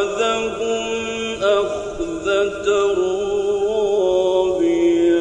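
A male Quran reciter chanting in long, drawn-out, ornamented notes, one voice holding and bending each note, with brief breaks about one and a half and two and a half seconds in.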